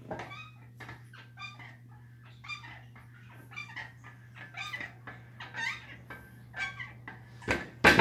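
Short pitched animal calls repeating about twice a second, the loudest near the end, over a steady low hum.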